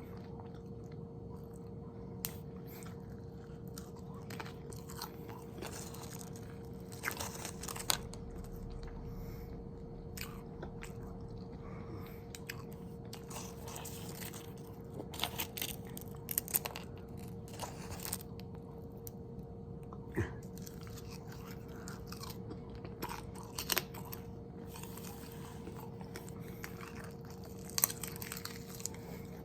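Close-miked chewing of food, with scattered sharp crunchy bites between softer chewing, over a steady faint hum.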